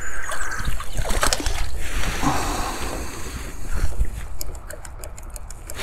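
Wind buffeting the microphone, a steady low rumble, with a run of quick clicks in the last second and a half.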